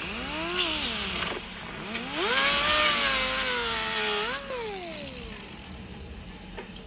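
Handheld electric power tool trimming plastic door trim: the motor spins up and winds down in a short burst, then runs again for about three seconds with a hissing cutting noise before spinning down.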